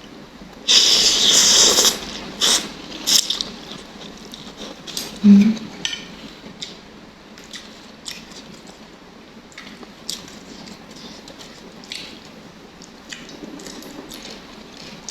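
Close-up eating sounds from a bowl of beef noodle soup. There is a loud, noisy burst of slurping about a second in, then chewing with short clicks of utensils against the bowl.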